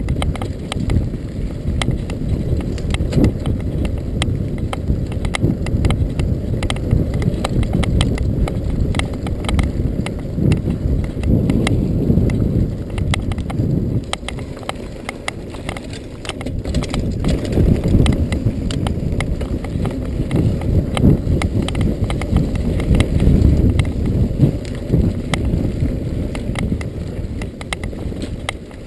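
Norco Storm hardtail mountain bike on 26x2.5 Continental Mountain King tyres riding down a dirt singletrack. The tyres rumble steadily over the ground, with constant clicking and clattering from the bike over the rough surface.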